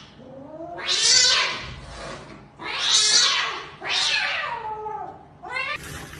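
Cat caterwauling during a standoff between two cats: three loud, harsh, hissing yowls, about one, three and four seconds in.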